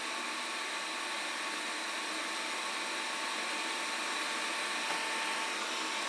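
ZooZee Z70 robot vacuum running its suction fan and brushes at the start of a cleaning run: a steady whirring hiss with a faint steady whine in it.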